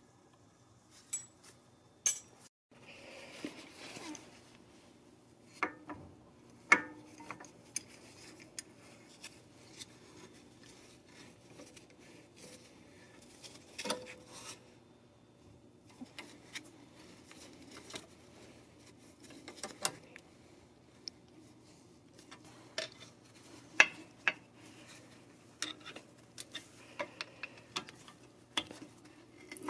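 Irregular metallic clinks, clicks and scrapes of hand tools and brake hardware on a Mercedes-Benz AMG front brake caliper: the pad retaining spring being handled, a caliper spreader tool pushing the pistons back between the pads, and a screwdriver levering the pads.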